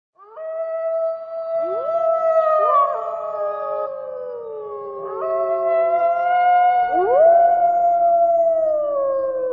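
A chorus of wolves howling, several long overlapping howls that swoop up in pitch, hold and slowly fall; a fresh round of howls starts about five seconds in.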